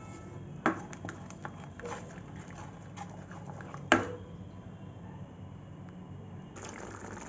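Wooden spatula stirring thick masala paste frying in oil in a kadhai, over a soft steady frying sizzle, with small scrapes and clicks. The spatula knocks sharply against the pan twice, just under a second in and again, louder, about four seconds in.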